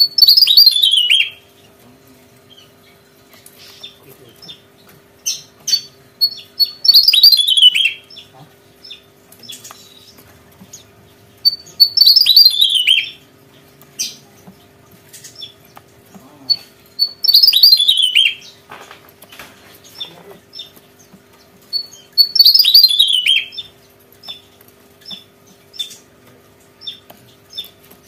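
Javan tesia singing: five loud song phrases about five seconds apart, each a quick run of notes falling in pitch over about a second and a half, with short chip notes in between.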